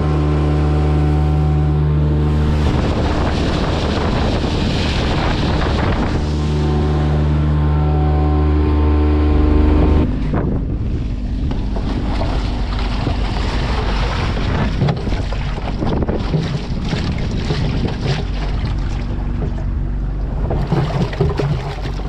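Boat engine running steadily under way, with water rushing past the hull. About ten seconds in this gives way to water sloshing and splashing as a plastic bucket is dipped over the side and emptied, with the engine still running more quietly underneath.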